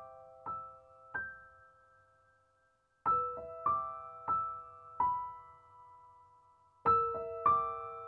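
Slow, sparse solo piano music. Single notes and chords ring out and fade, dying away almost to silence about two and a half seconds in. The playing resumes about three seconds in, with louder chords near the end.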